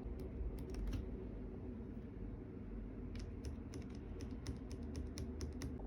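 Typing on a Keychron K3 keyboard with Keychron's own optical switches: light key clicks, a few scattered in the first second, then a quicker run of keystrokes from about three seconds in.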